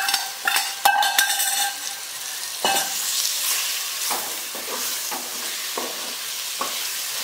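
Chilli-marinated prawns tipped from a steel bowl into a hot pot of frying masala, with a few sharp, ringing metal clinks of the bowl in the first two seconds. Then a steady sizzle, with a wooden spoon scraping and stirring about twice a second.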